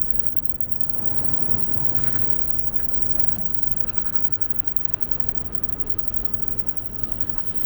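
Busy city street ambience: a steady low rumble of traffic with a few light clicks.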